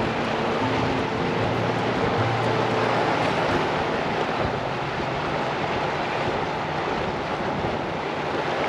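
Sea surf washing steadily on the shore, mixed with wind buffeting the microphone, with a faint low hum in the first few seconds.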